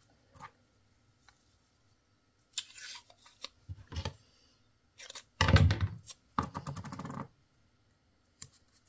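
Paper masking tape being handled, torn and pressed down over a small sheet of thin can metal: several short bursts of rustling and ripping, the loudest a crackling rip about six to seven seconds in.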